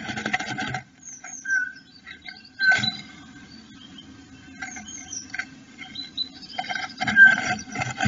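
Blue tit rustling and scratching the moss and grass of its nest cup inside a wooden nestbox as it shuffles and turns in the cup to shape it. There are bursts of scratching at the start, near 3 s and from about 7 s, with faint short high chirps in between.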